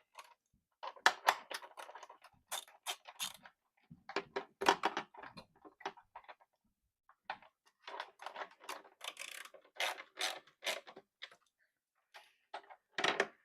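9/16 ratchet wrench clicking in several quick runs with short pauses as bolts are tightened.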